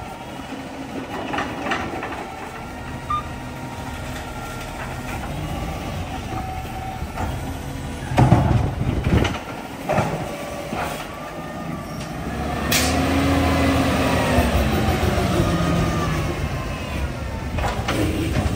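Labrie side-loading garbage truck running, with a run of loud knocks and clatters about eight to eleven seconds in. A short air hiss follows, then the engine speeds up and drops back.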